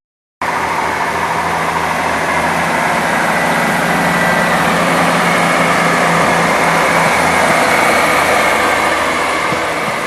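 Diesel passenger train engine and running noise at the station, with a steady engine note that grows louder to a peak near the end and then begins to ease. The sound starts abruptly after a brief break.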